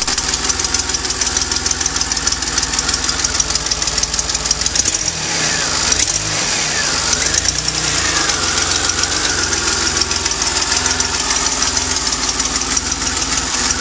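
DeLorean DMC-12's PRV V6 engine running with a fast, steady ticking and hiss from an exhaust leak, together with the uneven running of a bad spark plug. The pitch wavers briefly near the middle.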